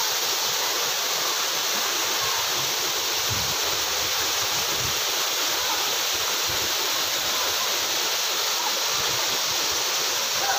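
Waterfall: water falling and splashing, a steady rushing noise.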